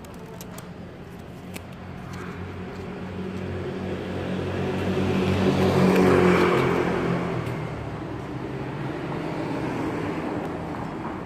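A motor vehicle's engine passing by on the street, growing louder to a peak about six seconds in and then fading away.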